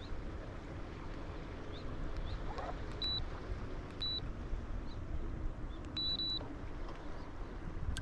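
Steady low hum of a small boat's motor moving slowly over shallow water. Three short, high electronic beeps sound over it: two a second apart, then a longer one a couple of seconds later.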